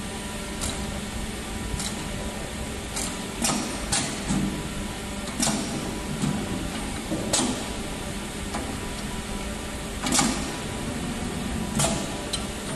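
3D CNC wire bending machine working a steel wire part: a steady whir of its drives, broken by sharp metallic clicks and clanks every second or two, the loudest about ten seconds in.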